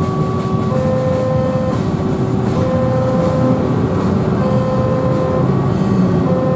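Railway level crossing warning alarm sounding two alternating tones, higher then lower, each held just under a second, over a steady rumble of road traffic.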